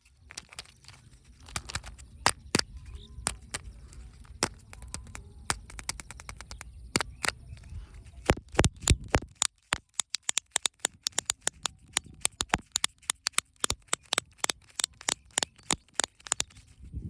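Surprise eggs and their packaging being handled and opened: a run of sharp clicks, cracks and crinkles, scattered at first over a low rumble, then coming rapidly, several a second, through the second half.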